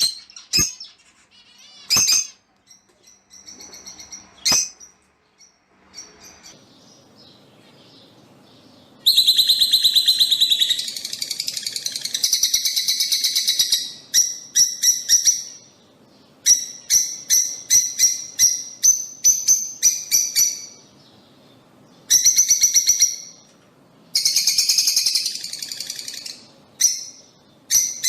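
Lovebirds calling: a few isolated sharp chirps, then from about nine seconds in, repeated bouts of rapid, high-pitched chattering and shrieking call series separated by short pauses.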